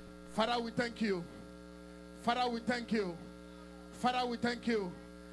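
Steady electrical mains hum, with three short phrases of a voice breaking in about every two seconds.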